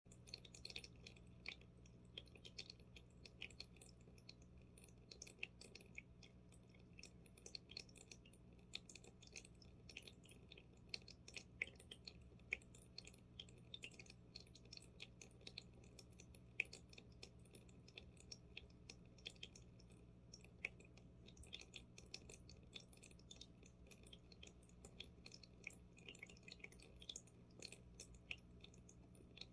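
Aquarium filter running faintly: a steady low hum with an irregular light crackle of water and bubbles.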